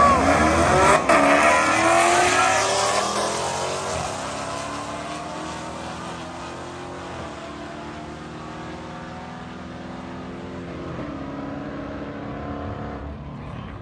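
Two V8 muscle cars, a supercharged Dodge Challenger Hellcat and a cammed 6.2-litre Camaro SS, at full throttle in a drag race, engines rising in pitch with a brief dip about a second in at a gear change. The sound fades steadily as they pull away down the strip.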